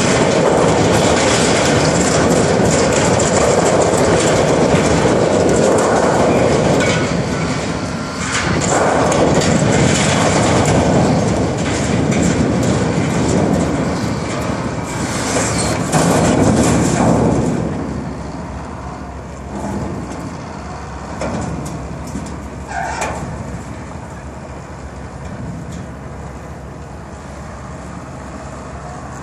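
Wheel loader tearing apart a toppled corrugated-steel grain bin: loud, continuous grinding, scraping and crunching of sheet metal. About seventeen seconds in it drops away to a quieter rumble with a few scattered clanks.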